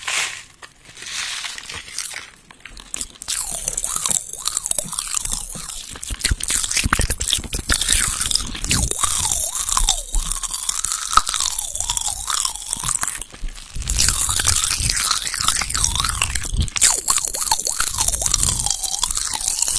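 Popping candy crackling and fizzing in an open mouth held close to the microphone, with wet mouth and tongue sounds. The dense crackle builds up about three seconds in, after the candy is tipped into the mouth.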